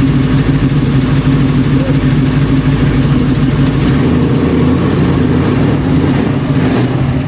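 1966 Ford Bronco engine running at a steady idle, just started for the first time after a full restoration.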